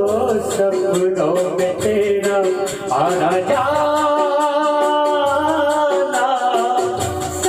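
A man singing a Hindi film-style song into a handheld microphone over backing music with a steady shaker-like beat, holding longer notes in the second half.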